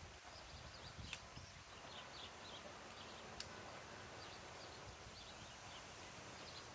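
Faint outdoor background with small birds chirping now and then, and a couple of light clicks.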